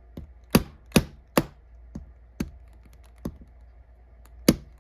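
Sharp metal taps striking a punch to drive the retaining pin out of a Master Lock 575 padlock's cylinder: three quick strikes about a second in, a few lighter ones, then another sharp strike near the end. The pin is stuck and not moving, pressed in too firmly.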